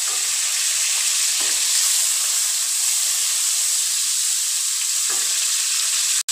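Chopped tomatoes frying in hot oil in a metal kadai, sizzling steadily, with a spatula scraping and stirring through them a few times.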